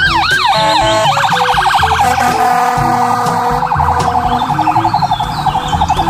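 Ambulance siren sounding: a quick rising-and-falling yelp that switches about a second in to a much faster pulsing warble.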